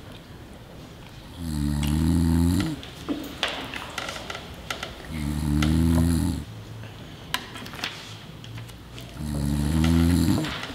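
A person snoring: three long snores about four seconds apart, with small clicks in between.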